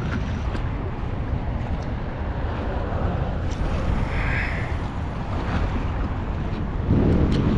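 Wind rumbling on the microphone, with a louder gust about seven seconds in.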